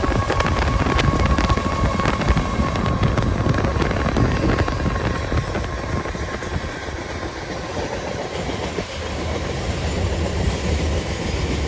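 A train led by Union Pacific 6173 rolling by: a steady rumble of wheels on the rails, with a few sharp clicks and a steady whine in the first few seconds that fades out after about three seconds.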